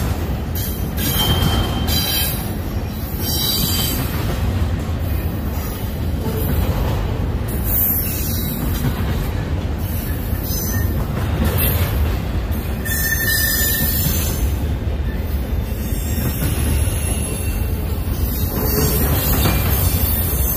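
Empty intermodal well cars of a freight train rolling past: a steady low rumble of wheels on rail, with high-pitched wheel squeals coming and going.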